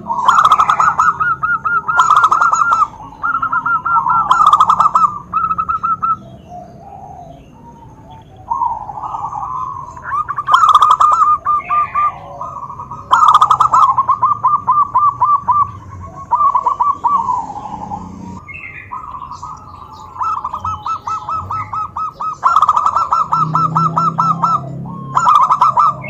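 Several zebra doves (perkutut) cooing in turn. About a dozen phrases of rapid, rolling notes, each one to two seconds long, follow one another with short gaps.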